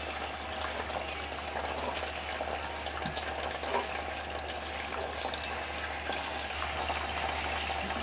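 Water trickling and splashing steadily from the spouts of a homemade plastic-bottle tabletop fountain into the basin below, with a steady low hum underneath.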